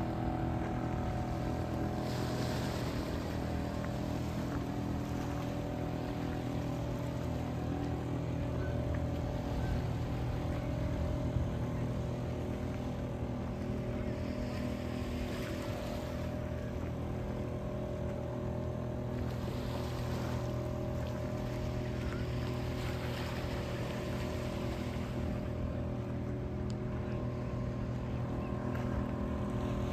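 Boat engine running steadily at an even, unchanging speed.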